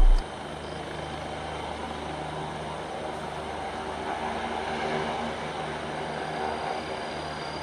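Steady distant roar of an F-15J fighter's twin jet engines in afterburner on its takeoff roll.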